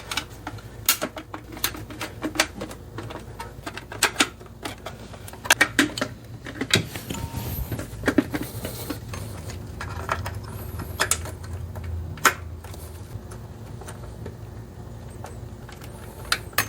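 Irregular clicks and light metallic knocks from hand tools and engine parts being handled, as a distributor cap is fitted back onto a small-block Chevy engine, over a steady low hum.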